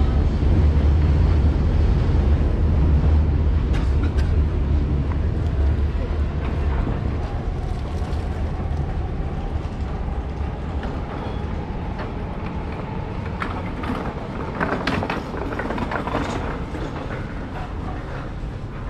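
Low rumble of a train passing on an elevated railway, fading out about seven seconds in, over general street noise with passers-by's voices.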